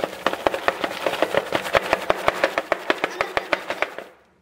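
Popcorn kernels popping: a rapid, irregular run of sharp pops that stops abruptly about four seconds in.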